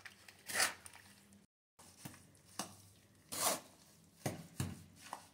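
A hand trowel stirring and scraping thick, wet tile adhesive mortar in a plastic basin. It makes about seven irregular squelching, scraping strokes.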